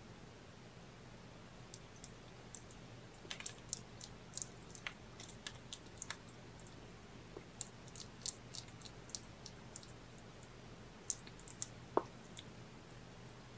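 Kitten suckling at its mother cat: faint, irregular small wet clicks and smacks, one slightly louder click near the end.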